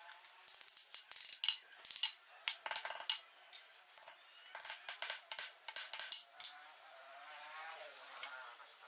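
Metal lathe parts being handled and fitted: a quick run of sharp metallic clicks, knocks and clinks for the first six seconds, followed by a faint wavering hum near the end.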